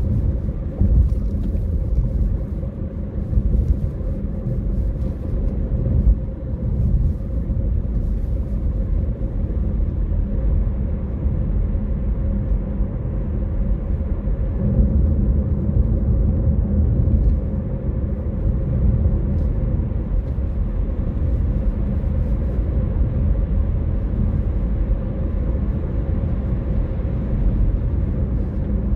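Steady low rumble of a car driving at an even speed, mostly tyre and road noise with the engine underneath, as picked up by a dashcam.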